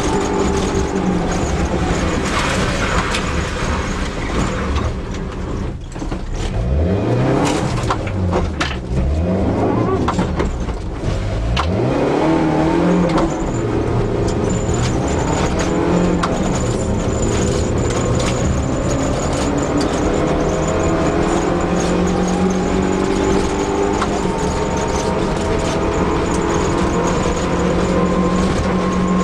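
Fiat Seicento Sporting Abarth rally car's engine under hard driving. Early on the engine note drops and rises sharply several times, as in braking and gear changes. It then climbs slowly and steadily in pitch as the car accelerates.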